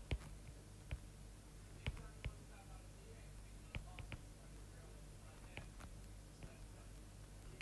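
Stylus tapping on a tablet's glass screen while handwriting, about ten sharp, short clicks at uneven intervals over a low steady hum.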